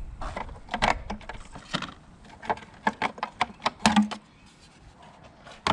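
Irregular clicks and knocks of hands working on parts in a car's engine bay, dense for about four seconds, then a pause and one sharp click near the end.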